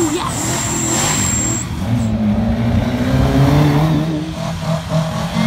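Rally car engine revving hard as the car accelerates past close by. The pitch climbs, dips about four seconds in, then climbs again.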